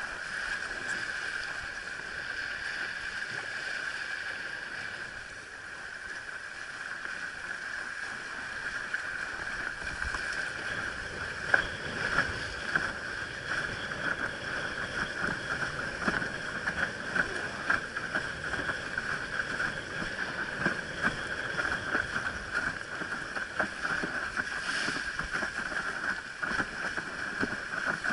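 Water rushing and slapping against a windsurf board's hull as it sails fast across a lake, heard from a camera mounted on the rig, with a steady hiss underneath. From about ten seconds in the run gets choppier, with frequent sharp slaps.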